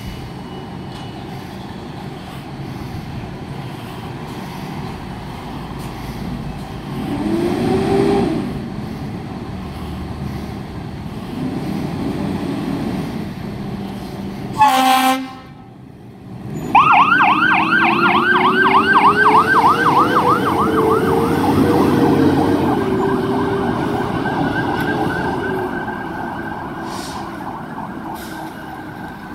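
Fire apparatus leaving quarters: a short, loud air-horn blast about halfway through. Then an electronic siren yelping rapidly, with a lower siren tone that climbs and then slowly falls away as the truck moves off.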